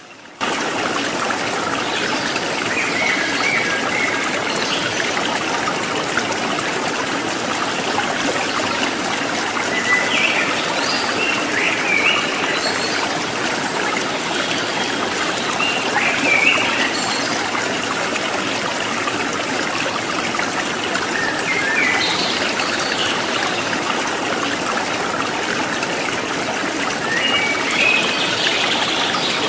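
Steady running water, like a stream, with short bird chirps every few seconds.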